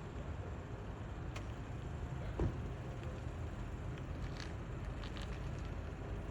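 Car running at low speed, heard from inside the cabin as a steady low rumble, with a single short thump about two and a half seconds in.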